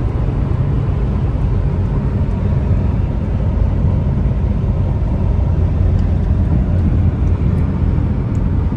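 Steady road and engine noise inside a car cabin cruising at highway speed, mostly a low rumble, with the engine turning about 3,000 rpm.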